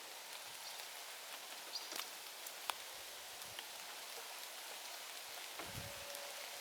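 Steady rain falling, an even hiss with scattered raindrops ticking sharply, the sharpest a little under three seconds in. A soft low thump near the end.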